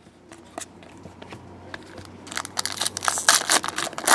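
Trading cards clicking as they are handled, then a foil trading-card pack wrapper crinkling and tearing open in quick crackles, loudest near the end.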